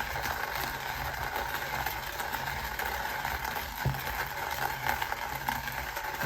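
Cafflano Klassic's hand-cranked ceramic burr grinder steadily grinding coffee beans, near the end of the grind.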